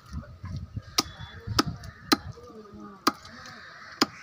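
A heavy cleaver chopping raw chicken on a wooden tree-stump block: five sharp chops, spaced about half a second to a second apart. Birds honk in the background.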